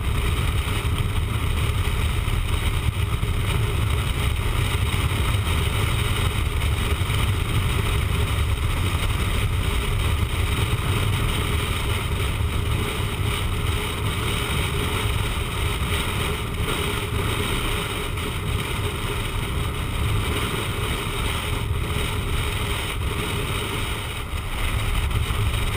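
Steady wind rush buffeting the microphone of a motorcycle riding at highway speed, with engine and road noise under it.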